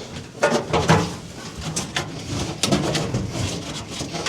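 Irregular knocks, clicks and rustling from a wiring harness being handled and pushed into place inside a car's interior.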